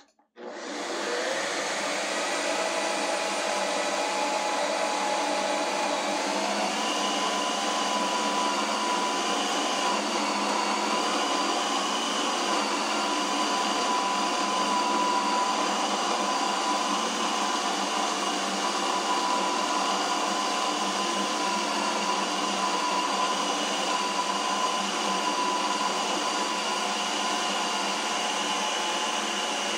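Ninja Creami ice cream maker running a ReSpin cycle: its motor spins up right at the start and then runs with a steady whine, the pitch rising a little about six seconds in. The ReSpin re-processes the frozen pint a second time, spinning faster, to smooth out a first pass that came out lumpy.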